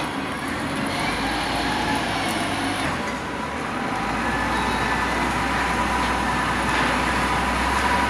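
Steady outdoor vehicle and machinery rumble, with a faint steady whine above it. A deeper low rumble sets in about four seconds in and holds.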